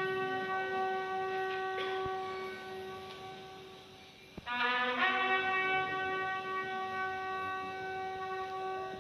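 A lone horn sounding long held notes. The first note fades away over about four seconds. About four and a half seconds in, a short lower note slides up into the same note again, which is held to the end.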